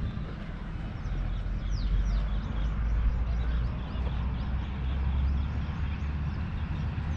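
Birds chirping outdoors: many short, quick chirps that slide downward in pitch, over a steady low rumble.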